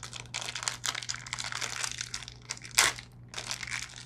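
Clear plastic bag crinkling as hands unwrap a small vinyl figure, with one sharp, loud crackle about three-quarters of the way through.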